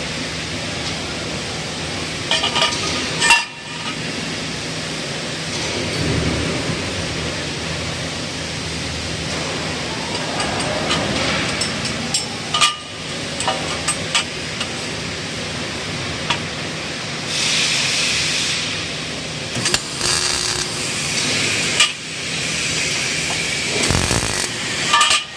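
Steel square tubing clinking and knocking as it is handled and fitted, over a steady factory hum. In the second half come several short bursts of MIG welding: the arc's hiss and crackle.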